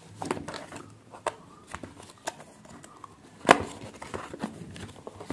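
A cardboard phone box being handled and slid out of its paper sleeve: scattered scrapes, rustles and light taps, with one sharp knock about three and a half seconds in.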